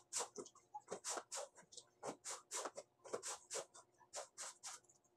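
Wet clothes being scrubbed by hand in a basin: quick, rhythmic scrubbing strokes, about three a second, in short runs with brief pauses.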